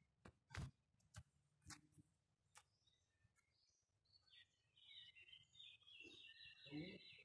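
A small songbird singing faintly: a quick run of high, rapidly repeated chirps starting about four seconds in and stopping just before the end. A few sharp clicks come before it in the first couple of seconds.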